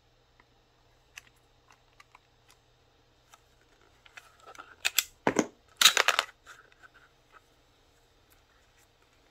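Hard plastic clicks of a Palm VIIx handheld being handled and its back battery compartment worked. Light scattered clicks are followed by a loud run of sharp clacks and clatter between about five and six and a half seconds in.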